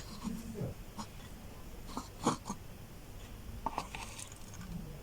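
Faint clicks and knocks of kitchenware and glass while warm lemon-infused oil is strained into a glass bottle, a few scattered taps with one louder knock about two seconds in.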